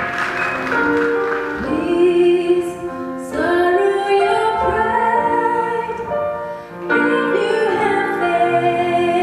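A woman singing a slow song solo into a microphone with instrumental accompaniment, long notes held. The last of the applause fades out at the very start.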